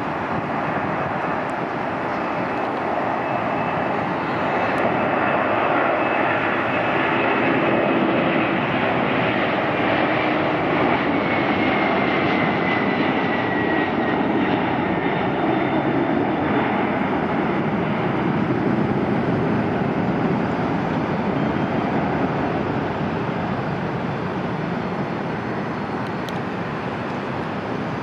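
Twin turbofan engines of a Boeing 767-300ER freighter at takeoff power: loud, steady jet noise that swells to its loudest in the middle and eases toward the end. A faint whine drops in pitch about halfway through.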